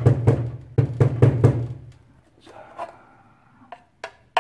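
A coffee grinder's stainless grounds container being knocked down several times in quick groups of two or three, settling the freshly ground coffee, each knock a dull thud. After that, softer rattling and a few sharp plastic clicks as its clear lid is worked open.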